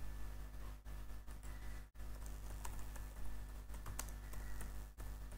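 Keystrokes on a computer keyboard: irregular light clicks of someone typing text, over a steady low hum.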